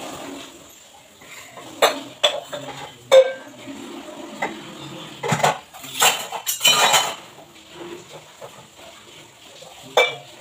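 Steel kitchen utensils and tumblers clinking and clattering as they are handled on the counter by the sink: a few sharp clinks, a busier clatter around six to seven seconds in, and one last clink near the end.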